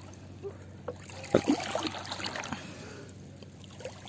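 Light, irregular splashing and trickling of sea water, with a few small knocks, busiest in the middle.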